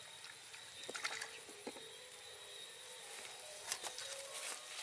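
Faint rustling and a scattered few light clicks from a woven bamboo trap being handled in grass.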